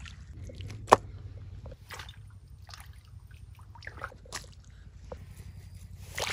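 Water sloshing and dripping as it is disturbed, with scattered light knocks and rustles, one sharp click about a second in, and a louder run of splashing near the end.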